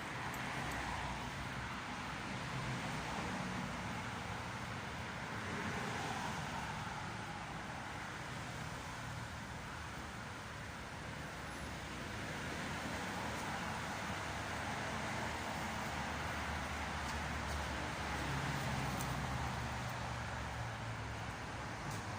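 Steady road traffic noise, swelling and easing slowly as vehicles pass.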